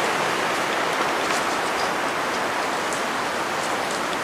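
Steady rushing noise of strong wind, about 30 miles an hour.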